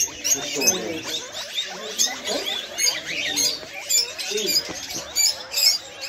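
Caged pet mice squeaking: many short, high squeaks and chirps packed close together.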